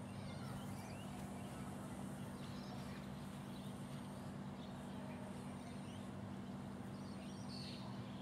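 Steady low hum with faint high chirps now and then.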